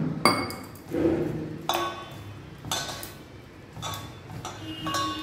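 Stainless steel mixing bowl knocked and ringing about once a second as a hand works oil into flour in it, with soft rubbing of the flour between the knocks.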